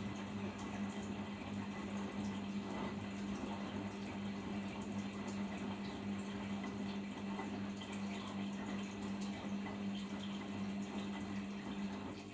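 Arçelik 5083 front-loading washing machine in its final spin stage: a steady motor hum over the rush of water being spun out and drained, dipping a little just before the end.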